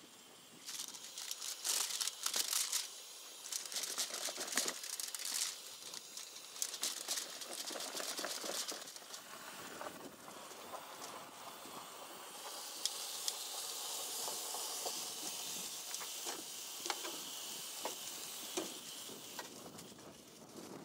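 Cloth rustling in bursts as greens are pressed and rubbed dry in a cotton kitchen towel. From about halfway through, chicken strips and carrots fry with a steady sizzle on a camp stove griddle, with a few clicks of metal tongs.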